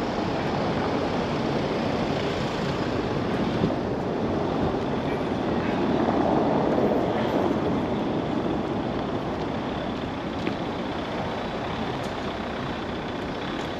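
City street traffic noise: a steady rumble of road vehicles, swelling louder about six to eight seconds in as one passes close by.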